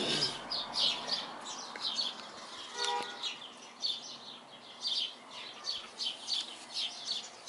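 Small songbirds chirping, a rapid run of short high chirps repeating several times a second.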